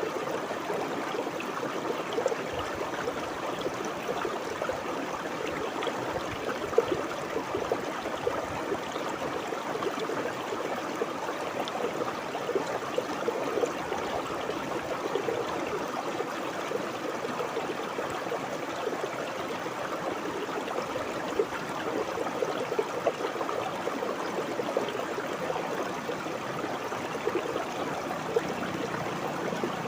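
Shallow river water flowing and babbling over stones, a steady gurgling burble with small splashes flickering through it.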